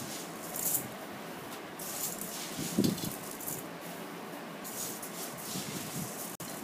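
Soaked pearl millet grains rattling in a steel bowl and being scattered and spread by hand over a cloth, a run of short rustling swishes. A louder thump comes near the middle.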